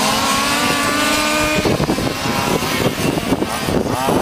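Small engines of radio-controlled model race trucks running on the circuit: one buzzing engine note climbs steadily for about a second and a half, then several engines rise and fall in pitch together as the trucks accelerate and lift through the corners.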